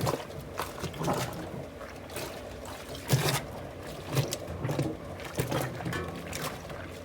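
A toilet plunger worked up and down in the water-filled tub of a top-load washing machine, sloshing water and clothes in irregular strokes about once a second. It stands in for the washer's agitator, which has stopped working.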